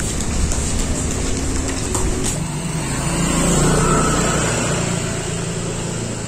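A motor vehicle's engine passing close by: a low hum that builds to its loudest a little past the middle and eases off near the end.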